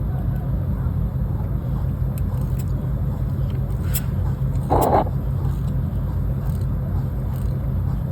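Diesel engine of a Freightliner semi truck idling with a steady low rumble, with a brief burst of rushing noise about five seconds in.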